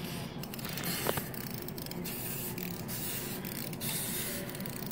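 Light scraping and faint clicking of a small plastic wind-up toy being handled and wound by hand, over a steady background hiss.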